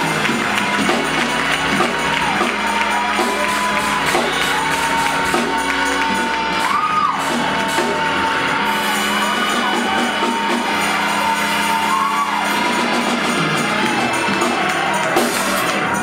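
Gospel praise-break music from a church organ and drum kit with tambourine, loud and unbroken, while the congregation shouts, whoops and sings along.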